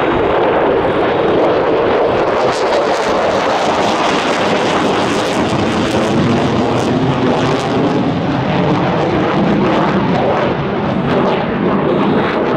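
Mitsubishi F-2B fighter's single F110 afterburning turbofan, a loud steady jet roar as the aircraft manoeuvres overhead, with a crackling edge in the middle seconds and the roar deepening in the second half.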